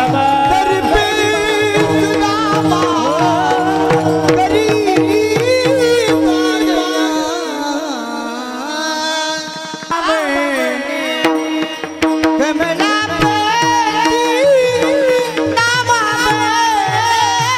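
Marathi kirtan music: a chorus of men singing a devotional tune, with small brass hand cymbals (taal) and a drum keeping time over a steady held note. The drum drops out for a few seconds near the middle while the singing goes on, then comes back.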